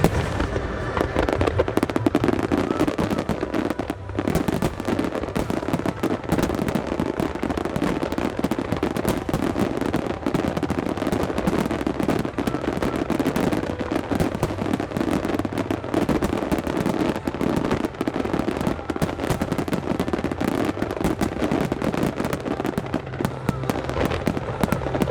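Aerial fireworks in a dense finale barrage: rapid, overlapping shell bursts with no real pause, thinning briefly about four seconds in.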